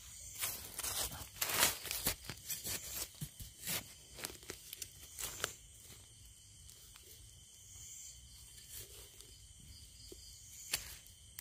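Dry forest leaf litter and undergrowth rustling and crunching in a run of short, irregular crackles, easing off to a few scattered rustles about halfway through.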